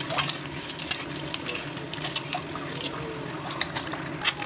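Metal spatula clinking and scraping against an aluminium kadai as it turns boiled eggs frying in hot oil, a few sharp clinks over a steady sizzle.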